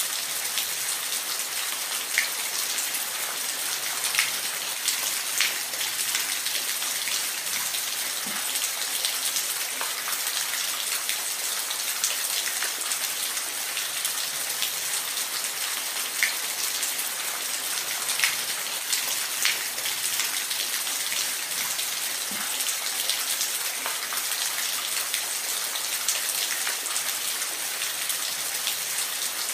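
Steady rain falling in a forest, a dense even hiss with scattered louder single drops every second or two.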